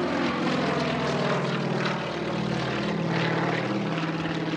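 Two Sukhoi aerobatic planes' radial engines droning steadily overhead as they fly in formation, their pitch sagging and recovering about two seconds in.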